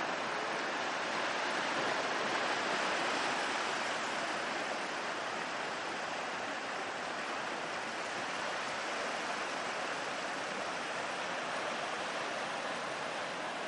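Steady wash of ocean surf breaking on a rocky shore, rising slightly about two seconds in.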